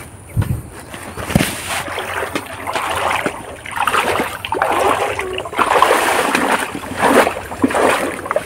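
River water splashing and sloshing in repeated, irregular surges.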